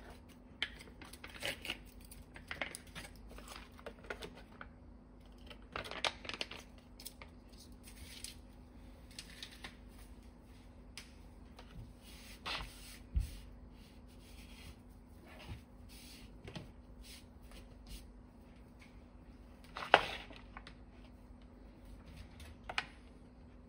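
Plastic sauce pouches and the foil lid of an instant noodle cup being squeezed and handled: irregular crinkling and rustling with small clicks, and one sharp knock near the end.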